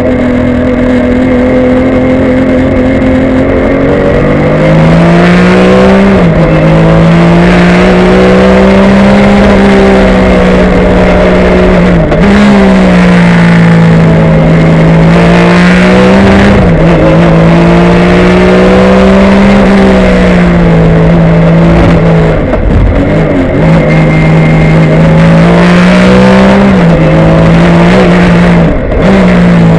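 Porsche 996 GT3 Cup race car's flat-six engine at full throttle, heard loud from inside the cabin: the pitch climbs steadily through each gear and drops sharply at each upshift, about every four to six seconds.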